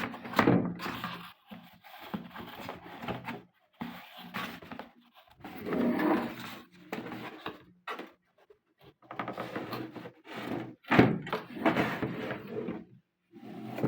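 A wall clock's box and packaging being opened and handled: irregular scraping and rustling with short pauses, and a few sharp knocks, the loudest about 11 seconds in.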